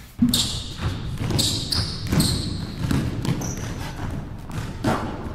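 A basketball being dribbled on a gym's hardwood floor, several separate bounces.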